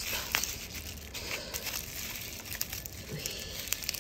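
Bubble wrap crinkling and rustling as it is handled and unwrapped from a bottle, with scattered sharp crackles.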